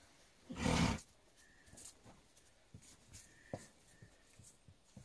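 Miniature donkey blowing a short snort out through its nostrils about half a second in, a half-second burst of breath noise. After it there are only faint scattered clicks and rustles.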